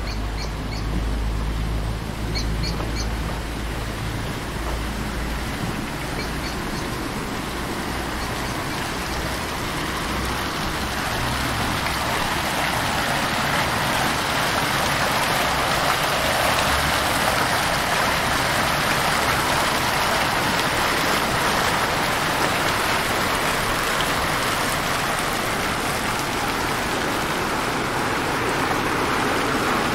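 Fountain jets splashing into a stone basin, a steady rush of water that grows louder from about ten seconds in. Before that a low vehicle rumble runs underneath, with a few short high chirps about two seconds in.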